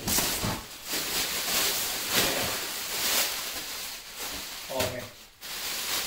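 Plastic wrapping rustling as RC model wing panels are lifted out of the box and pulled from their protective plastic bags.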